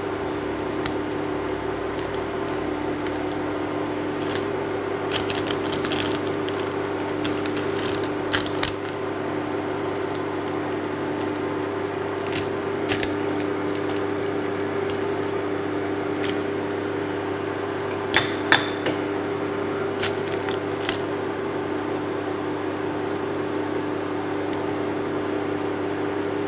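Light metallic clicks and taps, scattered and in small clusters, from a small mesh sieve being tapped to dust icing sugar over a tart. A steady appliance hum runs underneath.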